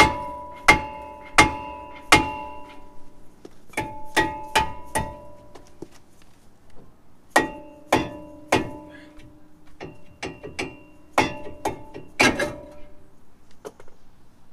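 A hammer striking a cast-iron brake rotor rusted to the hub of a Ford F-150, to knock it free. About twenty blows come in groups of three or four, roughly one or two a second, and each one rings like a bell.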